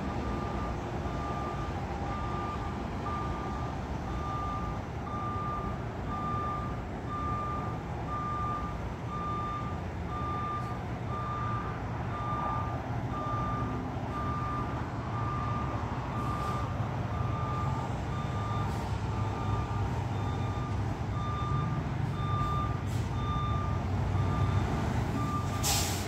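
Peterbilt 520 front-loader garbage truck's backup alarm beeping about once a second over its running engine, which grows louder in the second half. A short, loud hiss of air sounds near the end.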